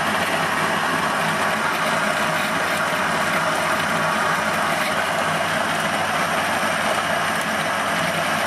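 Niche Zero single-dose coffee grinder's conical burrs grinding a 21 g load of coffee beans, running steadily with no change through the stretch. This is the new grinder's first grind.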